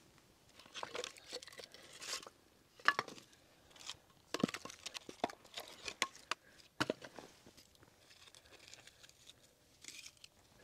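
Split firewood and dry kindling being handled: irregular knocks and clatter of wooden pieces being picked up and set down, mixed with crackly rustling of dry bark and shredded wood, busier in the first seven seconds.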